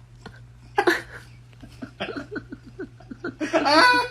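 A person laughing: a sharp burst about a second in, then a run of short quick laughs building to a loud high-pitched laugh near the end, over a steady low hum.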